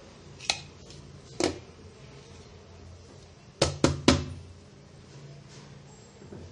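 Cake tin knocked and tapped to release a baked cake onto a plate: two single sharp knocks about a second apart, then three quick ones in a row about three and a half seconds in.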